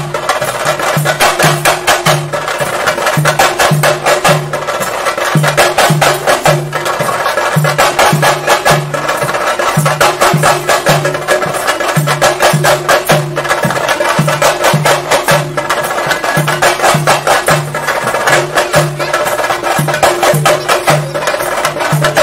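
Chenda drum ensemble playing loud, fast theyyam drumming: a dense stream of rapid stick strokes over a deep beat that falls about one and a half times a second.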